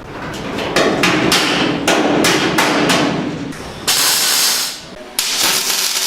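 Hammer striking steel car-body sheet metal, a quick run of sharp, ringing blows, then two longer, harsher bursts of noise near the end.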